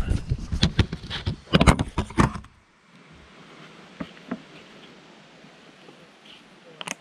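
A quick run of close clicking, knocking and clattering for about two and a half seconds as an oil bottle is fumbled with one hand. After that comes a faint steady hiss with a few small ticks.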